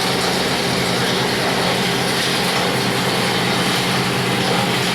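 Plastic scrap grinder machine with a blower running steadily: a constant loud mechanical hum and whoosh.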